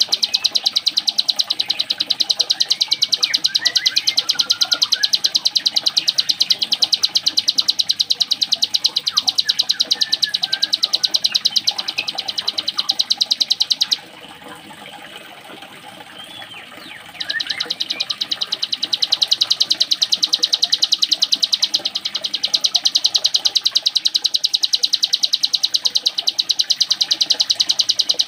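A ciblek gunung songbird singing a very fast, even, machine-like trill, its full 'ngebren' song that sounds like a sewing machine. The trill breaks off for about three seconds halfway through, and a few softer chirping notes sound over it.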